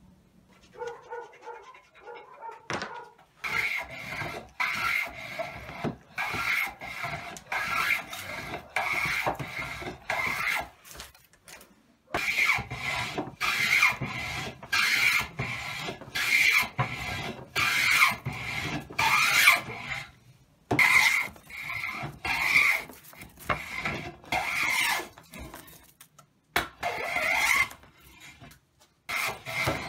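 Metal hand plane shaving a pine blank along the grain, taking the corners off an octagonal glued-up block to round it: repeated strokes, each a brief hiss as a shaving peels off, about one a second. The strokes come in runs with short pauses between them.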